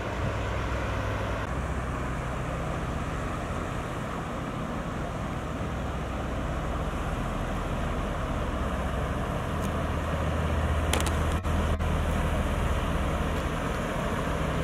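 Diesel engine of a river cargo ship passing close by, a steady low drone that grows louder about two-thirds of the way through as the stern comes near, over a steady rush of wind and water.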